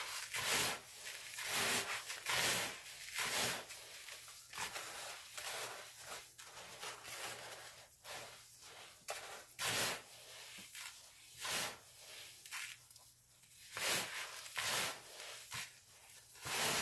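Gloved hands mixing coarse bath salts (sea salt, Himalayan pink salt and black lava salt) in a plastic bowl: gritty swishing and scraping of salt crystals, in irregular strokes about once a second.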